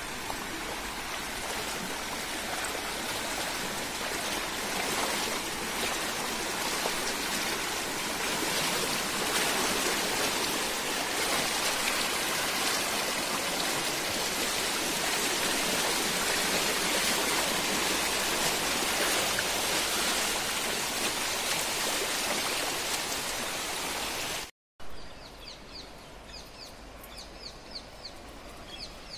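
Floodwater rushing steadily, a continuous loud wash of water. Near the end the sound cuts off abruptly and gives way to a quieter water background with birds chirping.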